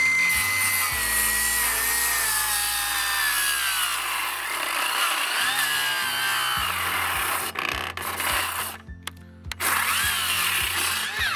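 Milwaukee FUEL brushless cordless circular saw cross-cutting a pine board, its whine sagging steadily in pitch through the cut. The motor stops about seven and a half seconds in, then spins up again briefly with a rising whine and cuts off near the end.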